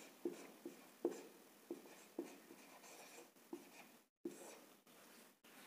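Felt-tip marker writing on a whiteboard: a run of faint, short pen strokes, about two a second.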